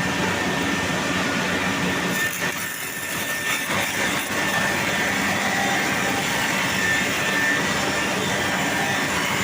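Single rip saw machine running and cutting through wood: a steady, dense machine noise with a brief dip about two to three seconds in.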